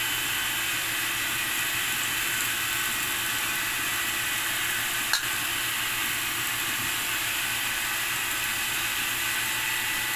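Chopped raw yellowfin tuna and vegetables being mixed by hand in a stainless steel bowl, a soft wet stirring under a steady hiss, with one sharp click about five seconds in.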